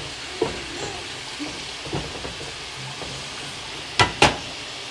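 Fries deep-frying in hot oil in a square pan: a steady sizzle with scattered small pops, and two sharp knocks close together about four seconds in.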